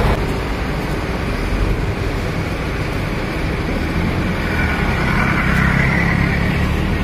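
Large tour bus's diesel engine running as the bus drives past, over steady traffic noise; the low engine hum grows a little stronger about four seconds in.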